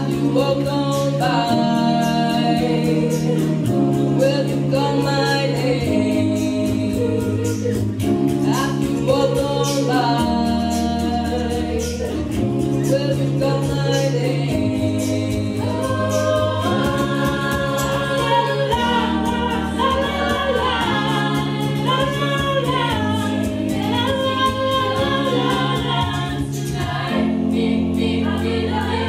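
Choir singing a song over accompaniment, with held bass notes that change every couple of seconds under a steady beat.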